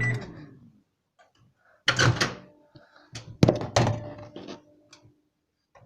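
Microwave oven's steady hum cutting off as it stops, followed by a series of sharp knocks and clunks as the microwave door is opened and the contents handled. The loudest knocks come about two seconds and three and a half seconds in.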